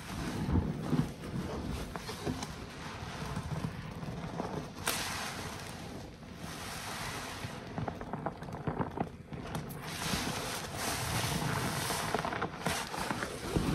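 Sudsy sponges, among them a car wash waffle sponge, being squeezed and kneaded by gloved hands in a tub of soapy water: a steady wet squishing with a dense crackle of tiny clicks from the foam.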